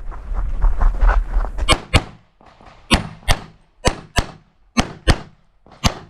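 Handgun fired in quick double-taps during a practical shooting stage: pairs of shots about a third of a second apart, one pair roughly every second, nine shots in all from about a second and a half in. Before the first shot there is a low rumbling noise.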